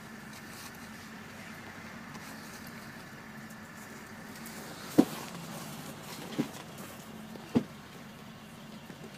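School bus engine idling, a steady low hum heard from inside the cabin. Three sharp knocks break over it from about halfway through, the first the loudest.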